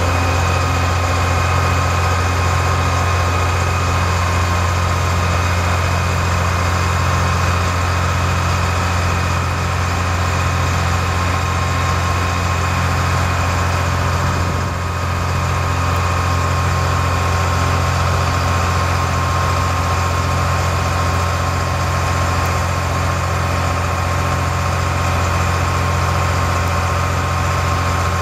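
International DT466 7.6-litre inline-six diesel engine of a 1990 International 4900 vacuum truck idling steadily, with a thin steady whine above the engine note.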